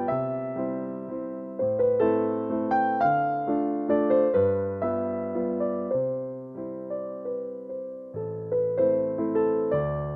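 Background keyboard music: a gentle melody of struck, fading notes over low bass notes that change every second or two.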